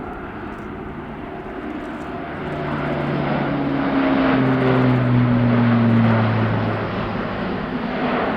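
Airbus A400M's four turboprop engines and propellers as the aircraft passes by. The sound swells to its loudest around the middle, and the propeller tones slide down in pitch as it goes past, then fade slightly.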